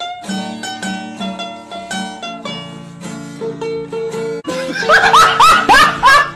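Background music of short plucked-string notes, mandolin-like, picking out a quick melody. About five seconds in, a quick series of short swooping high sounds joins it, and this is the loudest part.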